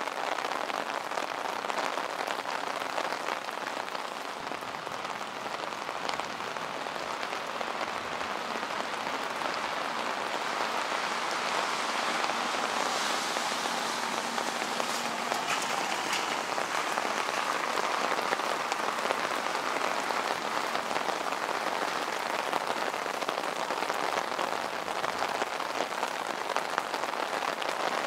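Rain falling steadily on wet city streets and pavements: a dense, even patter of drops, a little louder in the second half.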